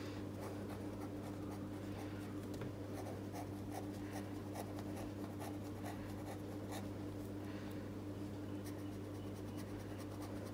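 Pilot V7 Hi-Tecpoint gel pen writing on notepad paper: faint, irregular pen strokes over a steady low hum.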